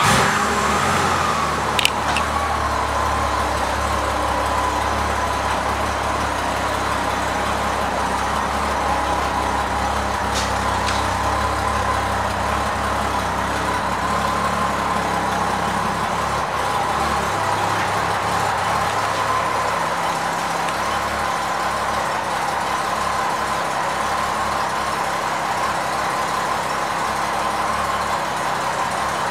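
1989 Honda Gold Wing GL1500's flat-six engine just after starting, idling steadily.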